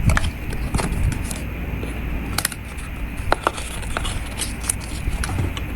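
Scattered small clicks and taps of a Samsung Galaxy Z Flip folding phone being handled and flipped open and shut, over a steady low rumble.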